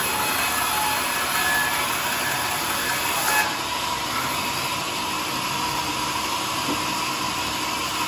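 Sawmill machinery running steadily: a continuous rushing noise with a faint steady whine.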